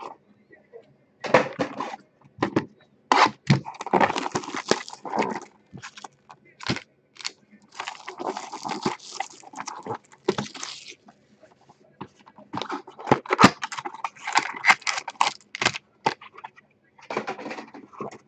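Clear cellophane shrink-wrap crinkling and tearing as it is peeled off trading-card boxes by hand, in irregular bursts, with cardboard boxes handled in between.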